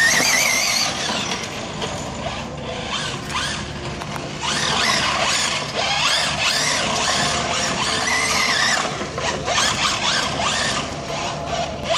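FG Sportsline BMW M3 RC car's two-stroke petrol engine revving up and down as the car drives, its high-pitched note rising and falling several times.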